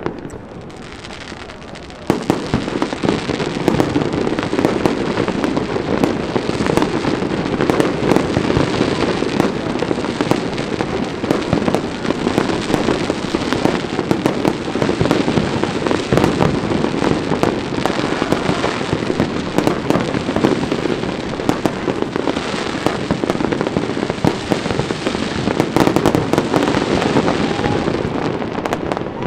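Fireworks going off in a dense, continuous barrage of bangs and crackles, which starts suddenly about two seconds in and keeps up without a break.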